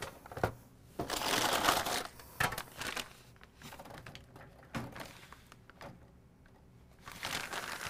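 Plastic bag of 8-pin mini-DIN connectors and paper sheets crinkling as they are handled, loudest about one to two seconds in, with a few sharp knocks in between.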